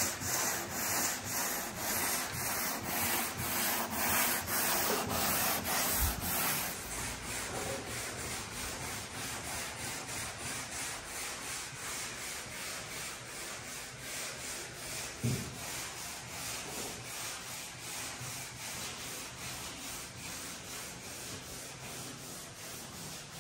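Sandpaper hand-sanding a car body panel coated in filler primer: a steady rhythm of rasping back-and-forth strokes, louder for the first several seconds and fainter afterwards.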